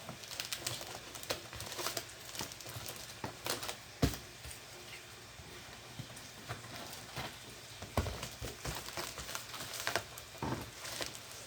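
Plastic packaging crinkling and rustling as items are unpacked by hand, with scattered clicks and two louder knocks, about four and eight seconds in.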